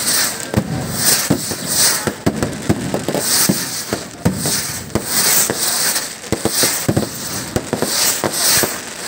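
Festival skyrockets launching one after another, each with a short hiss, over a dense run of sharp cracks and bangs from bursting fireworks.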